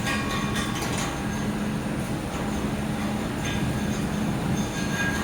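Air-cooled handheld laser welder running: a steady machine hum with a hiss, and faint high tones that come and go.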